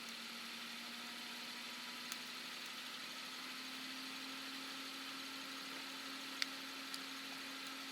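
Wood fire burning in a small stainless-steel colander fire pit, with a steady hiss and a few sharp crackling pops, over a steady low hum that rises slightly in pitch about three seconds in.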